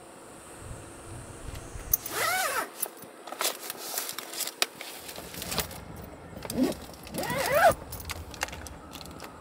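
Handling noises inside a car: rummaging, a wooden board tabletop set in place and a plastic food container set down, with scattered clicks and knocks. Three short squeaks, each rising then falling in pitch, come about two seconds in and twice more near the end.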